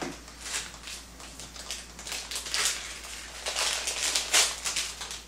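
Plastic wrapping of a pack of pizza bases crinkling and rustling in irregular swishes as the pack is opened and the bases are slid out, loudest about four seconds in.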